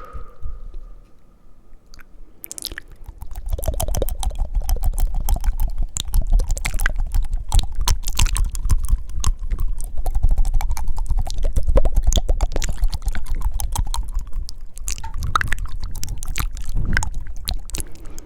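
Fast wet mouth sounds made right at the microphone: tongue fluttering and clicking with breaths. The sound is quieter for the first few seconds, then becomes a dense, rapid run of clicks about three seconds in.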